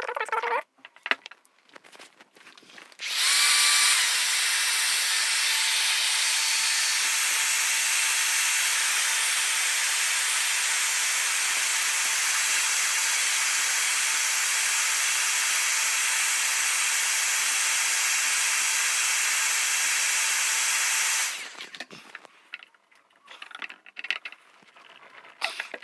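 A handheld power tool running steadily with a loud even hiss for about eighteen seconds, starting about three seconds in and cutting off suddenly, with a few small knocks before it and light handling noises after.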